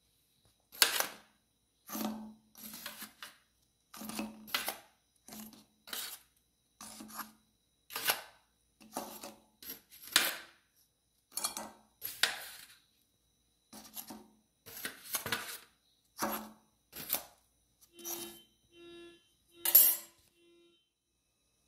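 Metal tongs clinking against a glass bowl and a metal baking tray about once a second, as baked cheese bread rolls are lifted and set down one by one. Near the end come four short tones.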